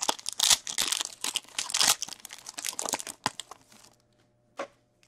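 Crinkling and tearing of a foil trading-card pack wrapper being ripped open and handled. It is dense crackling for about three and a half seconds, then a few soft ticks as the cards are handled.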